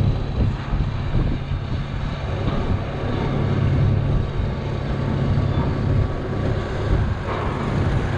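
Kenworth 953 truck's diesel engine pulling a drilling rig under load, a steady low drone.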